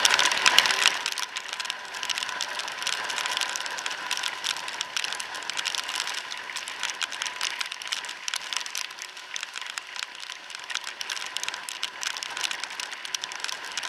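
Rain striking the camera in a dense, irregular crackle of small taps, with a faint steady whine underneath.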